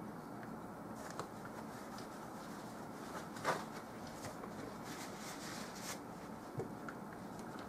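A paintbrush working oil paint: short scratchy swishes of the bristles, the loudest about halfway through and a run of strokes about five to six seconds in, over a steady hiss.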